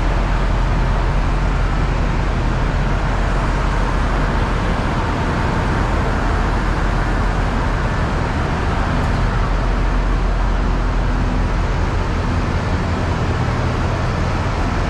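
Steady low mechanical rumble and hum of a Thai diesel express train, with no sudden events.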